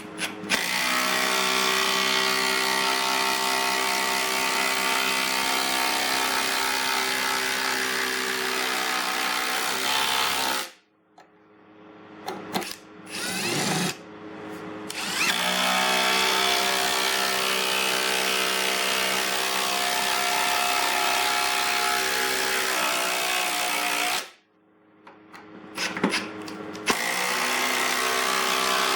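Ryobi 18V brushless three-speed impact driver, set on high, hammering large screws into stacked lumber in three long runs of about ten, nine and a few seconds. Short pauses with a few clicks fall between runs as the next screw is set.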